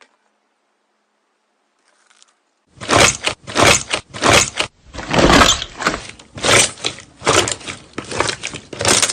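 Slime being pressed and squeezed by hand: a run of about a dozen crackly squishes, roughly two a second, starting about three seconds in.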